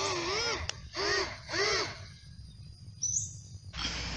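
An animal calling in the open, a short rising-and-falling note repeated about twice a second, stopping about two seconds in. Near the end a short rising tone sounds, and then a steady noise sets in.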